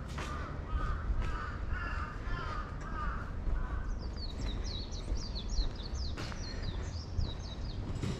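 Birds calling: a repeated lower call for the first few seconds, then a smaller bird's quick series of high, falling notes from about four seconds in, over a steady low background rumble.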